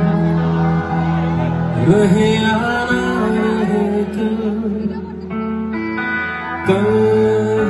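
Live band music played through the stage sound system, with sustained guitar and keyboard chords, and a male voice singing a wavering phrase a couple of seconds in. The chord changes near the end.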